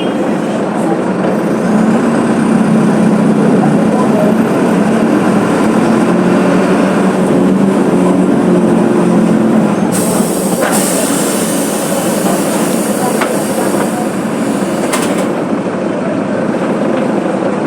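Mercedes-Benz OF 1721 BlueTec 5 bus's diesel engine running steadily, its note rising a little over the first several seconds. A short hiss of released compressed air comes about ten seconds in, and a fainter one a few seconds later.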